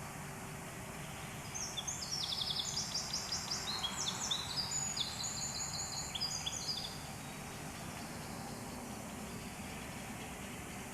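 A small songbird sings one long, fast song of high trilled phrases for about five seconds, starting near two seconds in, over a steady background noise.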